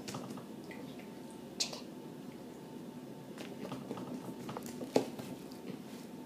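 Quiet small room with a few light taps and clicks, two of them sharper, about a second and a half and five seconds in.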